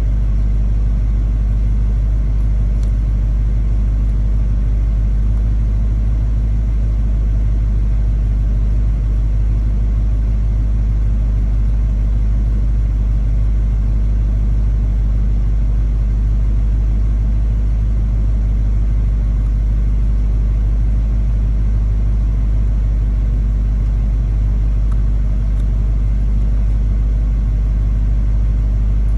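Dodge Hellcat's supercharged V8 running steadily with a low, even rumble that does not change in pitch. The owner doesn't know what this noise is and is asking for a diagnosis.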